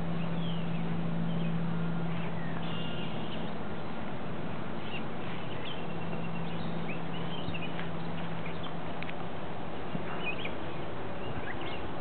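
Several birds chirping and singing in short calls, over a steady low hum.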